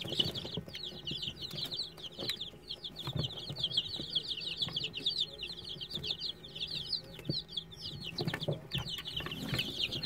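A brood of young Aseel chicks, about ten to twelve days old, peeping continuously in a dense chorus of rapid, high, falling chirps, with a few light taps.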